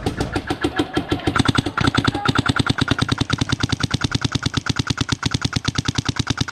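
Paintball marker firing in a rapid, unbroken stream of shots, about a dozen a second.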